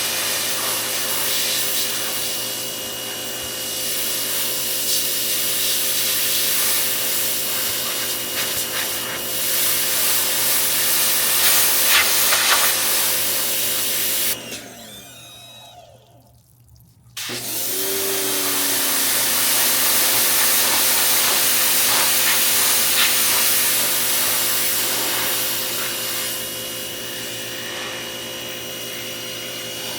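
Pressure washer spraying, its pump motor running steadily under the hiss of the jet. About halfway through the spray stops and the motor winds down almost to silence, then starts up again and the spraying resumes.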